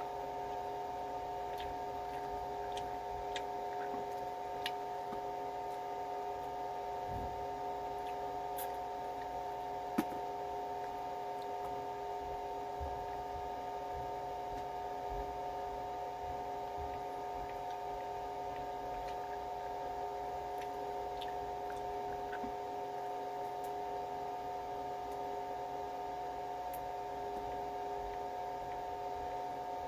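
Steady background hum of room noise with a few fixed tones, broken by a few faint clicks and small handling noises, one sharper click about ten seconds in.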